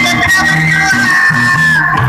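Instrumental music passage: a bass line stepping from note to note under a long, held melody line.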